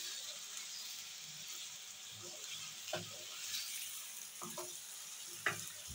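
Sliced potatoes frying in oil in a pan, a steady sizzle, with a few knocks of a wooden spoon against the pan as they are stirred, the sharpest about five and a half seconds in.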